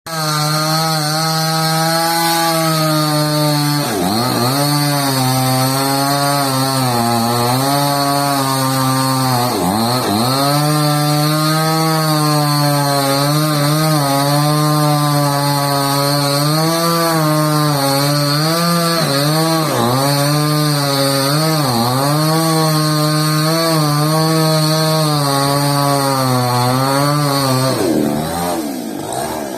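Chainsaw engine running hard at high revs. The engine speed dips sharply and recovers twice, about 4 and 10 seconds in, with several smaller dips later, then falls off near the end.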